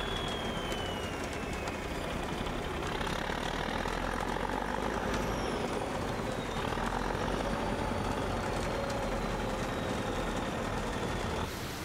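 Bulldozer's diesel engine working under load: a steady heavy rumble with whining tones that slowly fall and then rise. The sound drops suddenly near the end.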